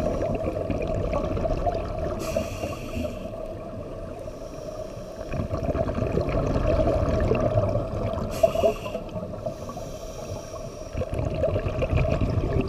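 Scuba diver breathing through a regulator, heard through the camera's underwater housing. Rushes of exhaled bubbles alternate with two brief hissing inhalations, one breath about every six seconds.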